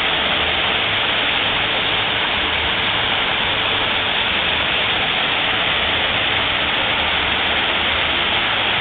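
Steady rush of water from an artificial garden waterfall splashing into its pond, even and unbroken.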